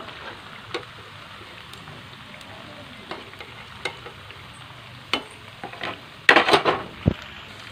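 Hot oil sizzling and crackling steadily around vadas deep-frying in a kadai, with scattered sharp pops. Near the end comes a short burst of louder clatter from the slotted spatula working in the pan, then a single low thump.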